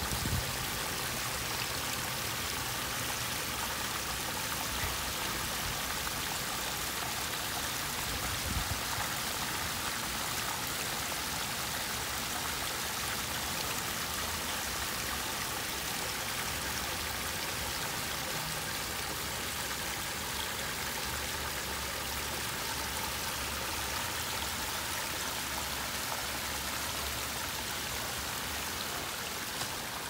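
Water from a small man-made waterfall splashing and trickling down a series of flat stone ledges between boulders, a steady splashing hiss.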